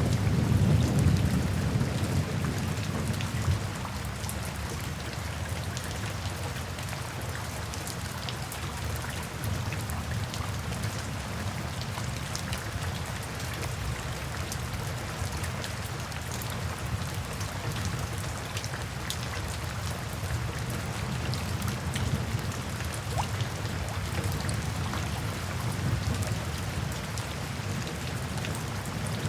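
Steady rain falling, with individual drops ticking close by. A low rumble of thunder fades out over the first few seconds.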